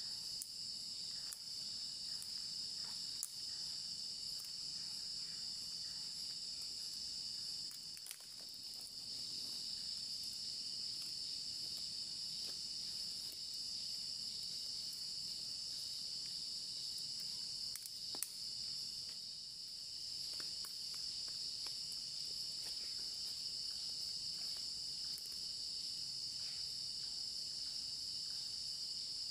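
Steady shrill chorus of night insects, a continuous high trill, with a few faint scattered clicks and one sharper click about two-thirds of the way through.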